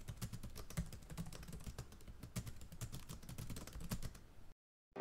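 Computer keyboard typing sound effect: a rapid, irregular run of faint key clicks that stops about four and a half seconds in.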